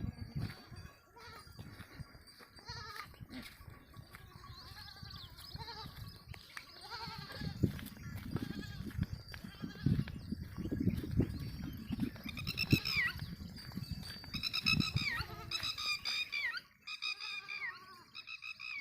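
Goats bleating, with several loud, falling bleats in the second half. Low knocking and rustling run underneath.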